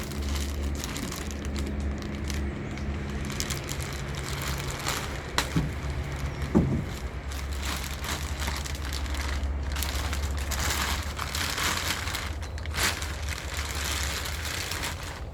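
A turbocharger's shipping package being handled and opened: irregular rustling of box and wrapping with many small clicks. There are two short squeaks about five and a half to six and a half seconds in, over a steady low hum.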